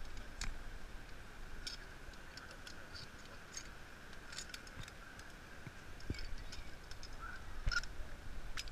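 Scattered sharp metallic clicks and clinks of zipline harness gear, carabiners and a pulley trolley being clipped onto the cable, over a faint steady high-pitched drone.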